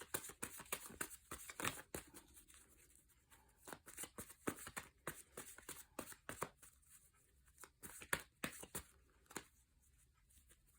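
Tarot cards being reshuffled by hand: a run of soft, papery flicks and taps, irregular and quiet.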